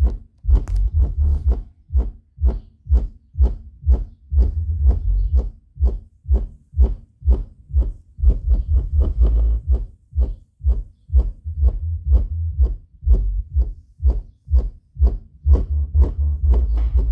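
Klipsch SW-450 10-inch powered subwoofer playing music heavy in deep bass, with long low bass notes and a steady beat of about two hits a second.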